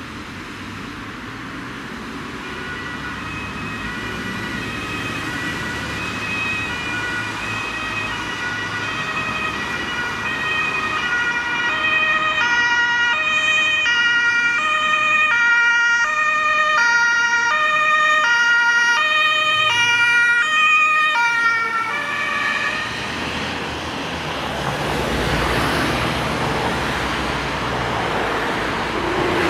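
German two-tone emergency horn (Martinshorn) on a rescue ambulance, alternating high and low notes about every half second and growing louder as the ambulance approaches through traffic. The horn switches off about three-quarters of the way through, leaving road traffic noise.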